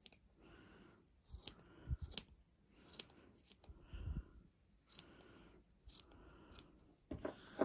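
Small scissors snipping the ends of acrylic yarn as a tassel is trimmed: a steady run of short, crisp snips, roughly one or two a second.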